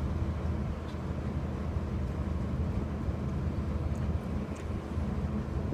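A steady low mechanical hum or drone, even in pitch and unchanging throughout.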